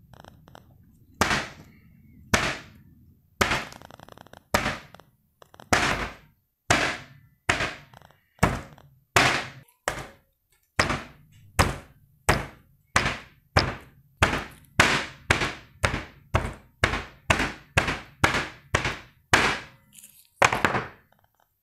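Claw hammer striking a chocolate-coated ice cream bar on a plastic cutting board, about two dozen sharp blows that crush the bar and crack its chocolate coating. The blows quicken from about one a second to about two a second, with a last, heavier blow near the end.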